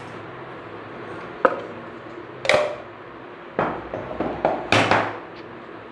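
A small wooden box and its contents being handled on a table: a lid lifted off and pieces set down, giving a few sharp knocks and clatters, with a cluster of them in the last two seconds.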